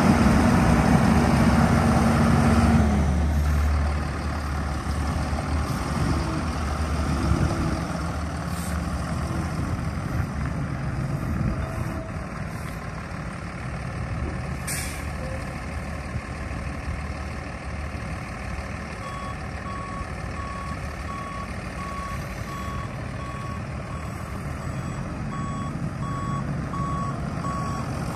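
Mercedes-Benz MBE 900 six-cylinder diesel in a 2006 Freightliner M2 truck running at raised revs, then dropping back to a steady idle about three seconds in. A single short hiss comes about halfway through. From about two-thirds of the way in, the truck's reversing alarm beeps at an even pace.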